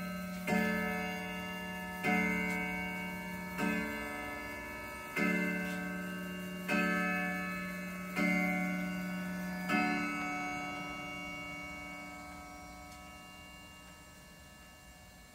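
Howard Miller Stalden keywound wall clock striking the hour on its chime rod: seven even strokes of the same low tone about a second and a half apart, each ringing into the next, the last fading away slowly over several seconds. With the hands at twelve, these are the closing strokes of the twelve o'clock strike.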